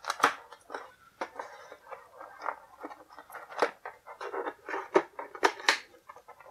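Plastic tray tabs being pushed through the slots of a toy box's cardboard backing: irregular small clicks, scrapes and crinkles of plastic against cardboard.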